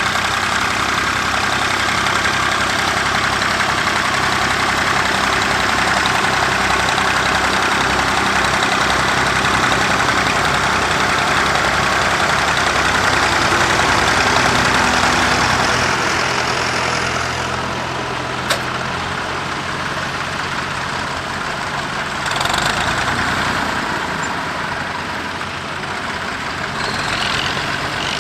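Massey Ferguson 135 tractor engine running steadily while ploughing. About halfway through it becomes somewhat quieter and thinner, with a single sharp click a couple of seconds later.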